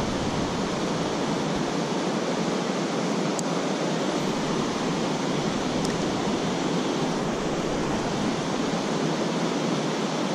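Steady rush of a shallow, rocky stream flowing over riffles.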